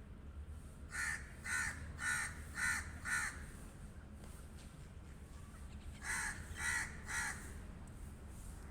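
Pet crow cawing: a quick run of five caws about half a second apart starting about a second in, then three more caws a few seconds later.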